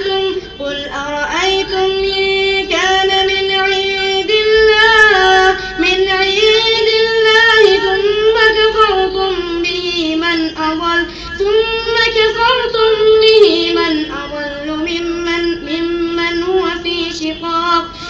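An imam reciting the Quran aloud in a high, melodic voice, drawing out long held notes with wavering ornamented turns between phrases.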